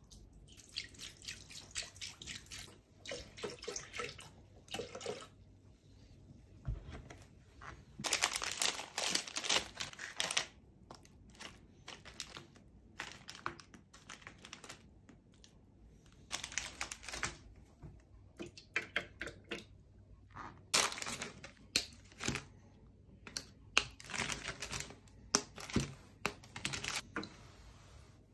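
Milk pouring from a carton into a Thermomix's stainless-steel mixing bowl, then a chocolate wrapper crinkling and a milk-chocolate bar being broken into pieces, with irregular clicks and rustles and several louder rustling stretches.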